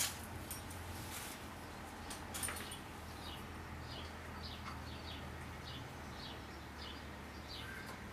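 A bird chirping, a quick series of short falling chirps about two a second, starting about three seconds in, over a steady low hum. A few light clicks of handling come earlier.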